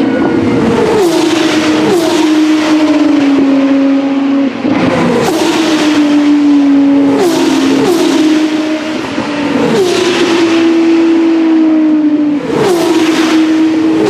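Open-wheel race cars' 3.4-litre V6 engines running at high revs, with a string of quick gear changes heard as sudden jumps in pitch that sink back down, and a car passing close by about eight seconds in.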